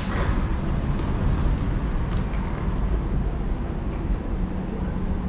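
Singapore MRT train running: a steady low rumble, with a steady hum joining about four seconds in.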